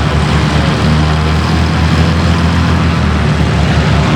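Antonov An-2's nine-cylinder radial engine and propeller running steadily and loudly, with an even low pulsing throb.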